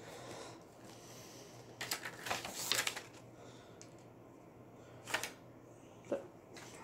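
A Blu-ray case and its paper insert being handled: a cluster of paper rustles and plastic clicks about two seconds in, then two single sharp clicks near the end.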